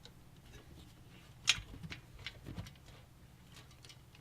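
Light clicks and taps of hands and a screwdriver working on parts inside a PC case, with one sharp click about a second and a half in and a few softer ticks after it.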